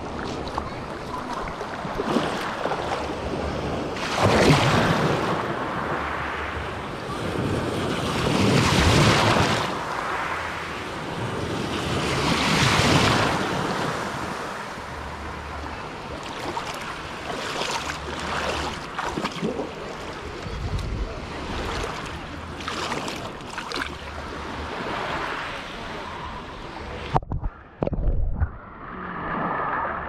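Small waves of a calm sea washing over pebbles, heard with the microphone at the water's surface, with a few louder surges and some wind on the microphone. About three seconds before the end the microphone dips under the water and the sound turns muffled.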